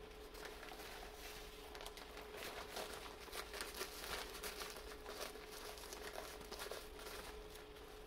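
Crinkling and rustling of a fabric bonnet dryer attachment's hose being handled and fitted onto a blow dryer's nozzle, a run of soft irregular crackles. A faint steady hum runs underneath.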